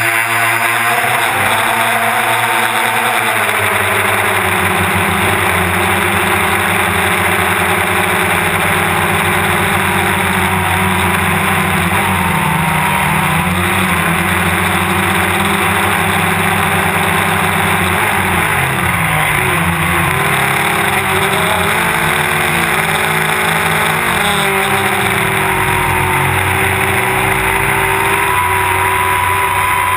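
DJI Phantom quadcopter's electric motors and propellers whirring, as picked up by the camera on the drone, with the rushing noise of the rotors. The pitch drops in the first few seconds, wavers again later and climbs near the end as the motor speeds change in flight.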